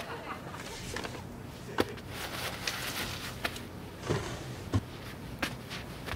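About half a dozen light knocks and clicks, spread unevenly, with a soft rustle about two seconds in: objects being handled, as when something is fetched from a kitchen drawer or cupboard.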